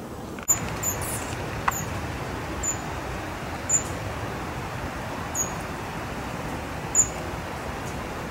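A small bird giving short, sharp high-pitched calls, six or seven of them spaced about a second apart, over a steady rushing background noise.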